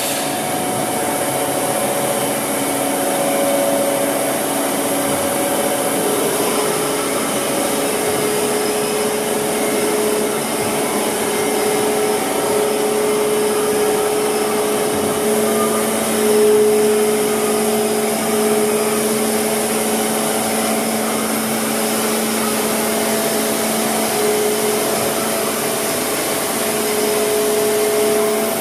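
Steady hum of powered workshop machinery: several constant tones over an even hiss, with one low tone coming in about halfway through and dropping out near the end.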